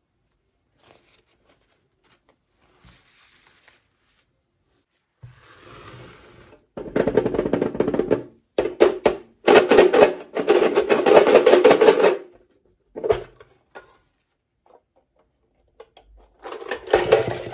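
Music with drums, heard in loud stretches that start and stop several times after a quiet opening.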